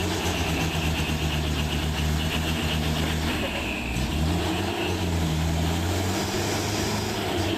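Truck engine running steadily, its pitch dipping about four seconds in and then climbing again as the revs change.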